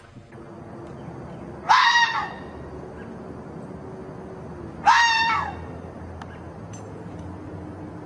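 Red fox calling twice, each a short, harsh, high-pitched scream-like bark about half a second long, some three seconds apart.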